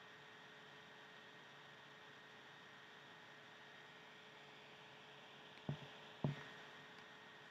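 Near silence with a faint steady electrical hum. Two short knocks come about half a second apart near the end.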